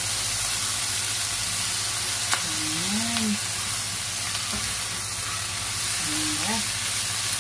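Shrimp, broccoli and onion sizzling in a nonstick frying pan as a spatula stirs them, with one sharp click about two seconds in.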